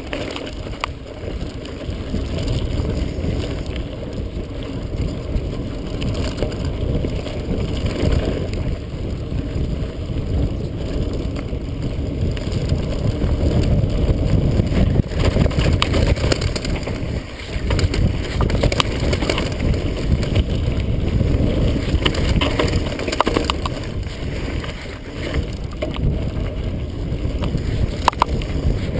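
Mountain bike riding down a dry dirt singletrack: a steady rumble of wind and tyre noise on the GoPro, with scattered clicks and rattles from the bike jolting over bumps.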